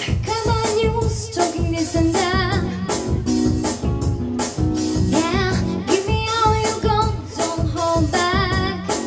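A young girl singing into a microphone over an instrumental backing track with a regular beat, heard through PA loudspeakers; her held notes waver in vibrato.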